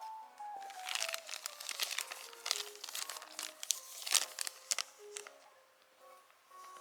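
Plastic packaging crinkling and crackling as it is handled, for about four seconds, over background music with a simple melody of single high notes.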